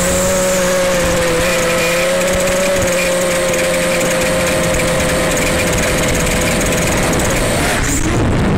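Phoenix 215 racing quadcopter's brushless motors and propellers whining steadily in flight, picked up by the onboard action camera. The pitch holds nearly level, then dips briefly near the end as the throttle eases.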